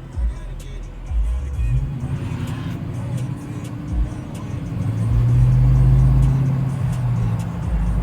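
Car engine rumble that swells to its loudest about five to seven seconds in, with music underneath.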